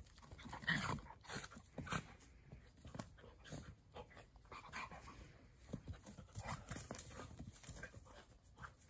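Two dogs, a small terrier and a collie-type dog, play-fighting, with short, irregular bursts of dog vocalising and panting.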